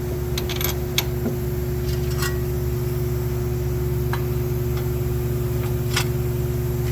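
Light metallic clicks and ticks of bolts and tools as the bolts holding the hub's backing plate are started by hand. A small cluster comes in the first second, then single ticks about every two seconds, over a steady low mechanical hum.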